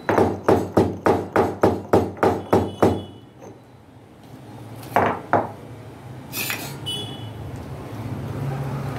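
Cardamom being crushed in a stone mortar with a stone pestle: about a dozen quick, even thuds, roughly four a second, then two more strikes a couple of seconds later. A short clink follows.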